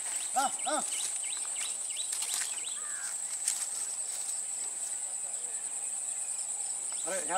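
Steady high-pitched drone of insects, with a few short pitched calls about half a second in and again near the end.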